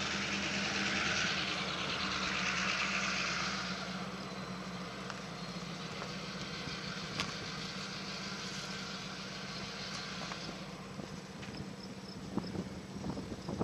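A steady engine hum with a broad rush of noise that eases off about four seconds in.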